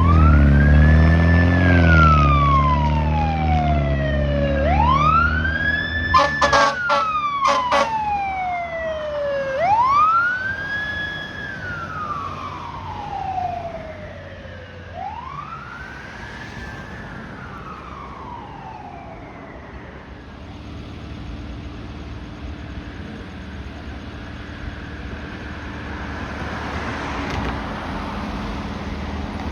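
Fire truck siren wailing four times, each cycle rising quickly and falling slowly, with a few short air horn blasts about six to eight seconds in. The siren then fades, leaving steady vehicle noise.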